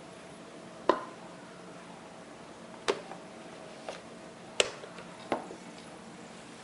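The clear cover and stainless steel cup of a Chef Pro CPG501 wet and dry grinder being handled: about five separate sharp clicks and knocks as the cover is unlocked and lifted off.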